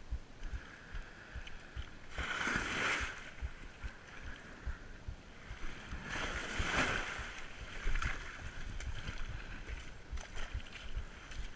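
Stand-up paddle strokes through seawater: two splashing swooshes about four seconds apart, over a steady low rumble of wind on the chest-mounted microphone.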